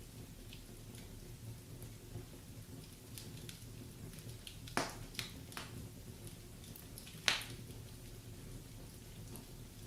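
Wood fire burning in a fireplace, the logs crackling: scattered small snaps over a soft steady rush, with two louder pops a little under five seconds in and a little over seven seconds in.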